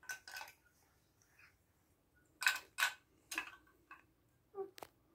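Plastic LEGO DUPLO pieces being handled and fitted together, giving a few scattered small clicks and knocks, the loudest a pair about two and a half seconds in.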